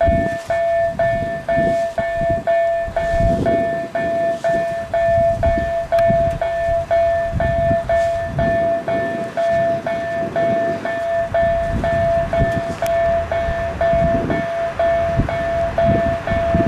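Railroad level-crossing warning signal ringing, one steady tone repeating about twice a second, signalling an approaching train, over an irregular low rumble.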